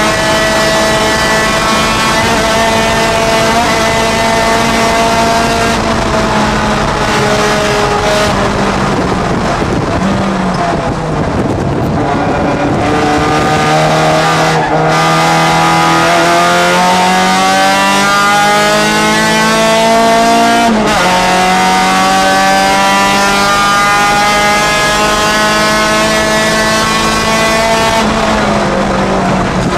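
A Honda Challenge race car's four-cylinder engine heard from inside the cockpit, running at high revs through a lap. The revs fall off about ten seconds in, then climb steadily. They drop sharply at a gear change about twenty-one seconds in, climb again, and ease off near the end.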